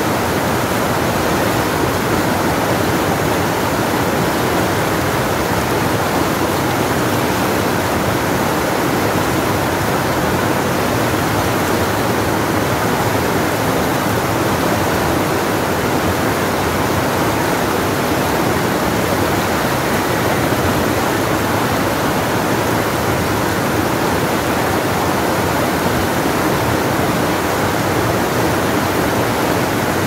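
Shallow river rapids rushing over boulders: a loud, steady roar of white water.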